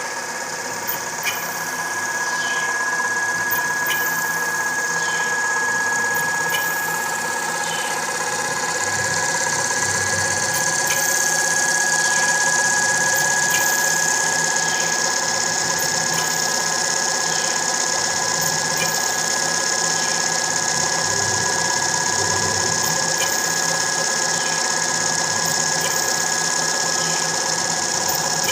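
Home-built CNC machine running its fourth (rotary) axis as a lathe, driven by a 12 Nm 230 V stepper motor: a steady mechanical running noise with a constant high whine and scattered small clicks, growing louder over the first dozen seconds.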